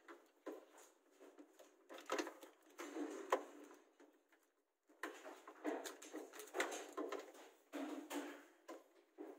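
Clear plastic bag crinkling and rustling in uneven bursts as a small plastic DVR box is handled and shifted on it, with light knocks and clicks.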